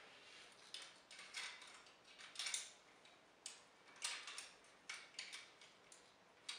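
Faint, scattered clicks and rattles of the hard plastic parts of a Leader Class Megatron transforming action figure being handled and fitted together by hand.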